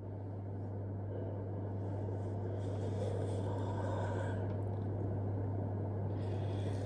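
A man's long, drawn-out yawn, most audible about three to four seconds in, over a steady low drone that grows a little louder in the first two seconds and then holds.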